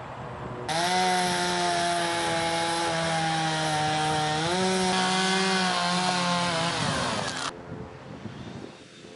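Chainsaw running at high speed, starting abruptly about a second in. Its pitch steps up about halfway through, then glides down before cutting off sharply near the end.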